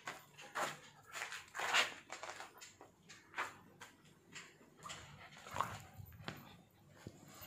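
A pitbull mix and a Siberian husky playing close together, making a string of short, irregular dog sounds, the loudest about two seconds in.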